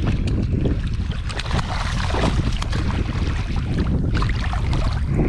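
Wind buffeting the microphone: a loud, fluttering low rumble over a hiss of open-water noise.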